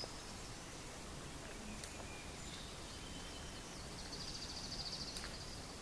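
A small songbird's fast, high trill of rapidly repeated notes lasting about a second, near the end, over steady outdoor background noise, with a few faint high chirps before it.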